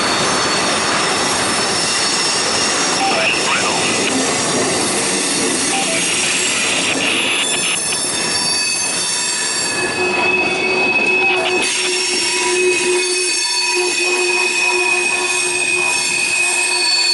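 Railroad cars rolling steadily past, their steel wheels squealing against the rails: several thin, high, held tones over the noise of the passing train.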